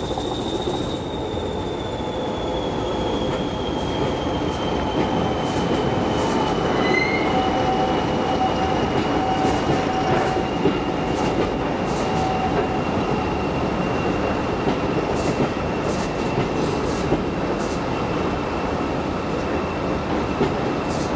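A train hauled by a Class 20 diesel locomotive running past below, its coaches' wheels clicking over the rail joints over a steady rumble. A thin high whine runs throughout and slowly falls in pitch.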